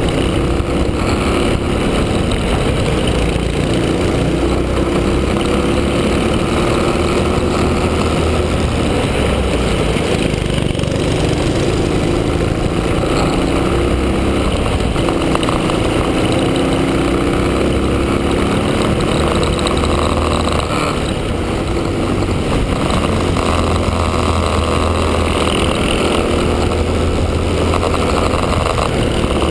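Honda-engined Cadet kart's single-cylinder four-stroke engine running continuously at racing speed on track, its pitch rising and falling through the corners and straights.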